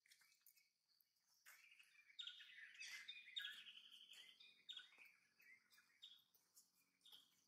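Birds chirping faintly, a run of short high chirps.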